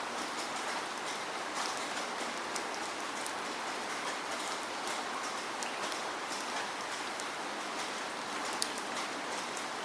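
Steady rain falling, an even hiss with scattered sharp drip ticks of individual drops striking a surface.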